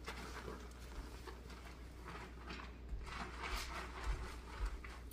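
Faint handling noises: soft rustles and a few light knocks, a little louder in the last two seconds.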